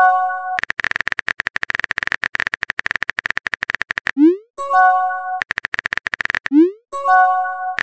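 Simulated phone-chat sound effects: long runs of rapid keyboard-typing clicks, broken about every two and a half seconds by a short rising swoosh and pop and then a bright multi-note chime as a new message appears.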